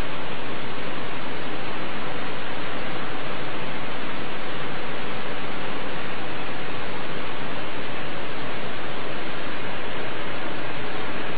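Loud, steady hiss, even and unchanging throughout, with no other sound rising above it.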